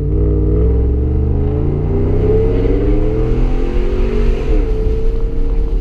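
Cabin sound of a 5.7L Hemi V8 running through a muffler delete and Y pipe while the truck drives, the engine pitch climbing under acceleration, dipping briefly about four and a half seconds in, then holding steady.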